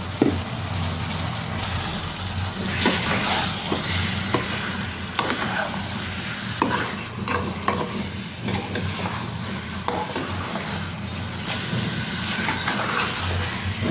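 Marinated chicken pieces sizzling in hot oil and masala in a metal kadai, stirred with a metal spatula that scrapes and clicks against the pan. The chicken has just gone into the fried-down masala.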